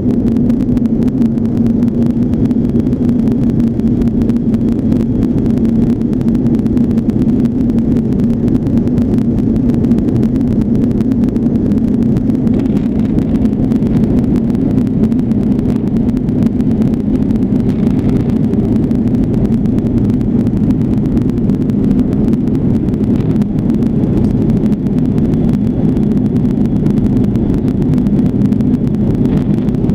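Airplane engine and propeller drone heard inside the cabin: a loud, steady low hum over a constant rumble.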